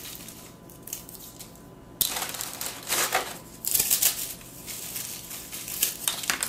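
Saltine crackers being crushed by hand over a mixing bowl: irregular crackly crunching that starts about two seconds in, in short spells.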